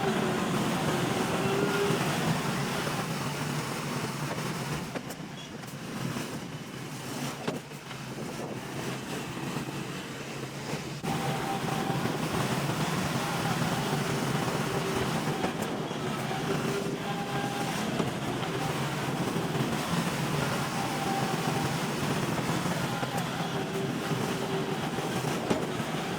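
Diesel bulldozer engine running under load, its pitch wavering up and down. It drops quieter for a stretch about five seconds in and picks up again about eleven seconds in.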